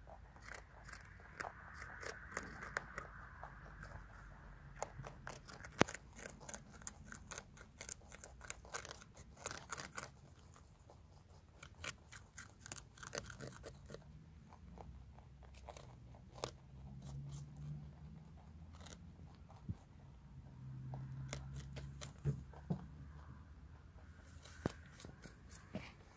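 Rabbits chewing raw red cabbage up close: a quick, irregular run of crisp crunches as their teeth bite through the leaves.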